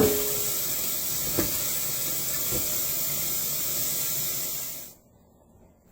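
Kitchen tap running hard into a strainer of sliced onions, peppers and mushrooms in the sink, with a few light knocks as the vegetables are rinsed and mixed; the water shuts off suddenly about five seconds in.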